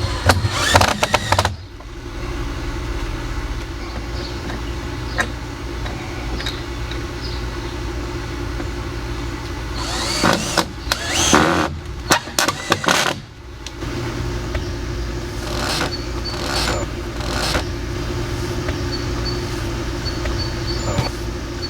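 Power drill driving 3-inch wood screws through a steel post-repair bracket into a wooden 4x4 post, in several short bursts: near the start, a longer run about halfway through, and again a few seconds later. A steady low hum runs underneath.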